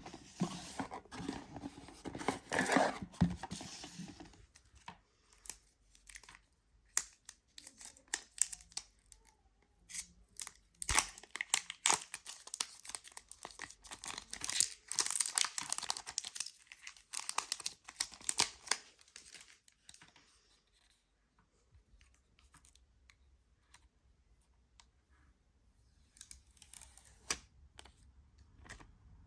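Packaging being torn open and crinkled by hand, with scattered clicks and rustles of handling. It falls to near silence for several seconds in the last third, then a few light clicks.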